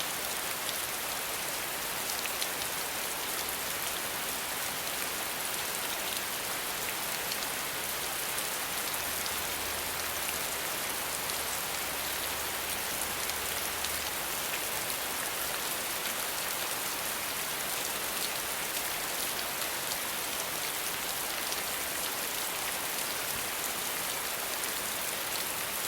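Steady rain falling on a surface, an even hiss with fine drop patter throughout, and a faint low hum for a few seconds near the middle.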